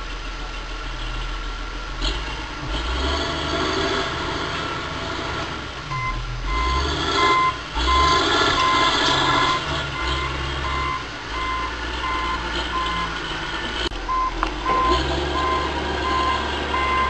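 Heavy diesel machinery, an excavator working as a log harvester, running with its engine load rising and falling. From about six seconds in, a backup alarm beeps steadily on and off.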